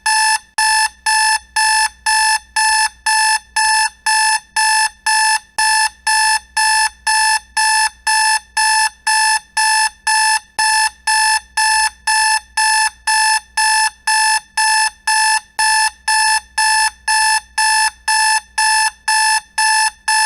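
Alarm clock beeping: short beeps of one steady pitch repeating evenly, about two a second, sounding the wake-up call at the end of a sleep session.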